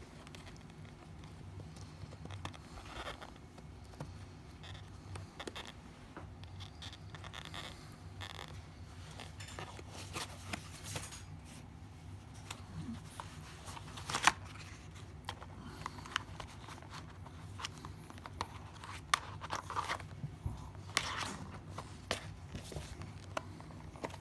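Close handling noises of packaging being opened: scattered crinkling, tearing and scraping with sharp clicks, the sharpest about halfway through and a cluster near the end, over a low steady hum.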